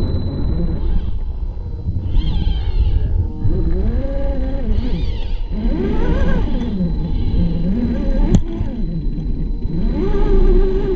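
Electric motor and gearbox of a scale RC rock crawler whining, the pitch rising and falling over and over as the throttle is worked on a rocky climb. There is one sharp click about three quarters of the way through.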